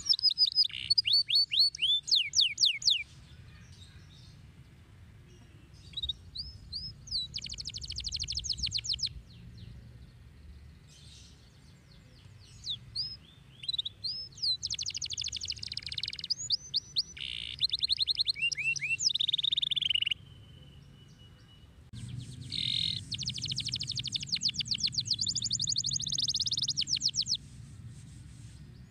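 Domestic canary singing in bursts of fast trills and quick falling chirps, each phrase lasting a few seconds with short pauses between, the longest trill near the end.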